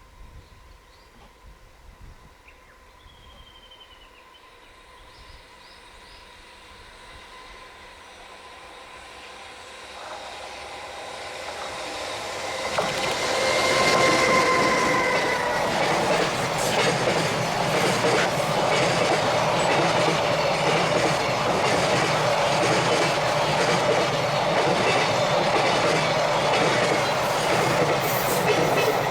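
Freight train hauled by an EH500 electric locomotive approaching. It grows louder over a few seconds from about ten seconds in, then passes close by from about thirteen seconds in with the continuous rumble and clatter of wagon wheels on the rails.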